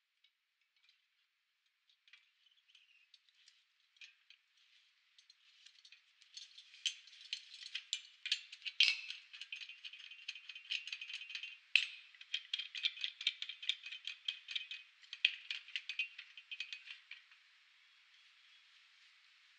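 Irregular metallic clicks and rattles from handling the HSC2018 hydraulic spring compressor and a coil-spring strut: sparse at first, busy from about six seconds in, then fading to a faint hiss near the end.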